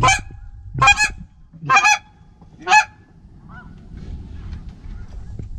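Goose honking: four loud honks about a second apart, then only faint sounds.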